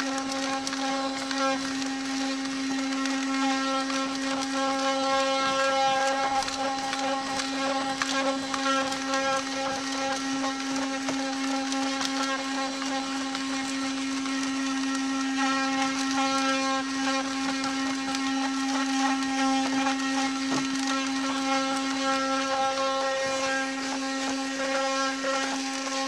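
12-volt handheld in-car vacuum cleaner running, its motor giving a steady whine at an unchanging pitch over a hiss of suction, as the nozzle is worked across the car's carpet and floor mat.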